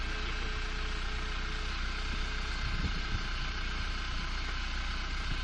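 Steady mechanical running hum as the motorised Tooway satellite dish on a car roof tilts down toward its stowed position, with a few soft low thumps about three seconds in.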